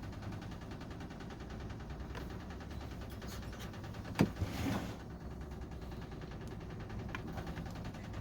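Parts of a chainsaw being handled during disassembly: one sharp knock about four seconds in, followed by a brief scrape, over a low steady hum.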